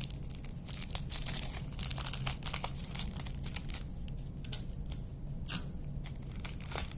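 Small plastic bags of resin diamond-painting drills crinkling and rustling as they are handled, with many small, irregular clicks and taps.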